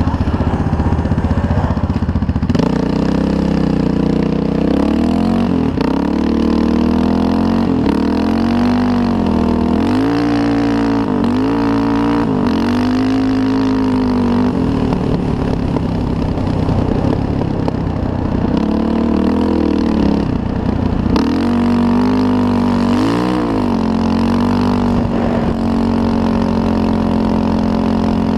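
Off-road vehicle engine running under way, its pitch rising and falling again and again as the throttle is worked, then holding steadier near the end, over a steady rushing noise.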